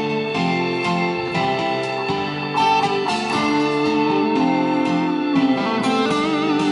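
Live Thai pop song, with an electric guitar playing prominently through the music.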